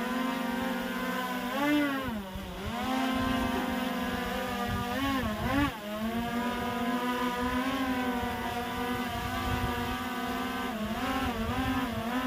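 DJI Air 2S quadcopter hovering close by: its propellers give a steady whine whose pitch swoops down and back up several times, about 2 s, 5 to 6 s and 11 s in, as the drone corrects its position. A low rumble runs underneath.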